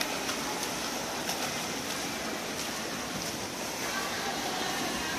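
Freestyle swimmers' strokes and kicks splashing through the pool water, a steady wash of splashing and churning.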